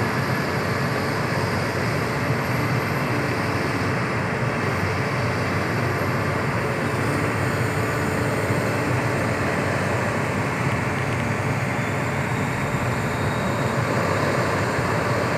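Sumitomo SH350 excavator's diesel engine running steadily.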